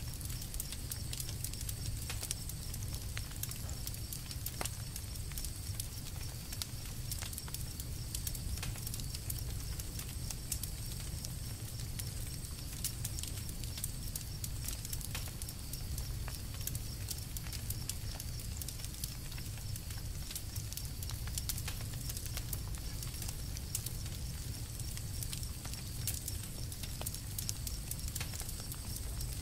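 Campfire crackling, with frequent small sharp pops and snaps over a low steady rumble and a faint steady high-pitched tone.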